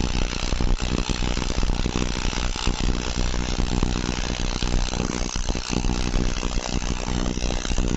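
AC TIG welding arc on aluminium: a steady buzz with irregular crackling, held without a break.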